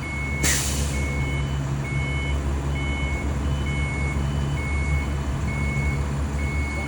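Backup alarm on heavy equipment beeping about once a second over a heavy engine running steadily, with a short hiss of air about half a second in.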